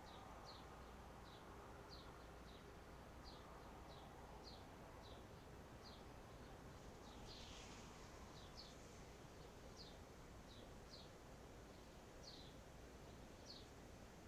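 Faint outdoor ambience with a small bird calling: a short, high, falling chirp repeated about one and a half times a second, with one brief, fuller call about halfway through.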